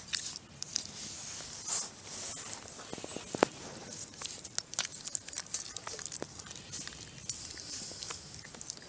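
Five-week-old Great Pyrenees–chocolate Lab cross puppies snuffling, mouthing and scuffling on dirt right at the microphone: a run of irregular scratchy rustles and small clicks, with a sharper knock about three and a half seconds in.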